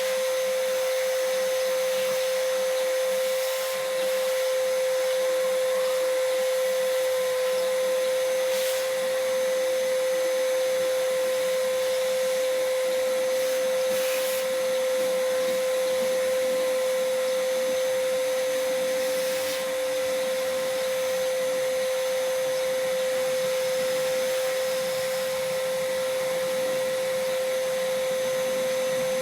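An electric motor running steadily with an unchanging humming whine, from a car-detailing tool such as a vacuum or blower.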